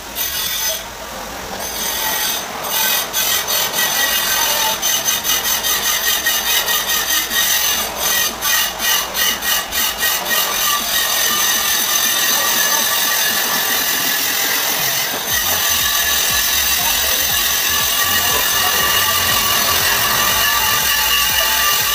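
Handheld angle grinder running and cutting, a steady high whine. For several seconds in the middle its level flutters rapidly as the disc bites in and out of the cut, then it runs steadily.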